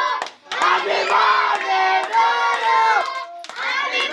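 A group of children singing together loudly in long, held phrases, with hand claps. The singing breaks off briefly just after the start and again about three seconds in.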